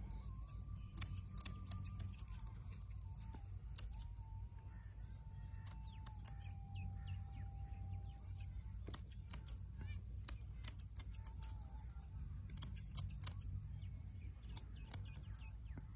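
Steel barber's scissors snipping moustache hair cut over a comb, in quick runs of several crisp snips separated by short pauses.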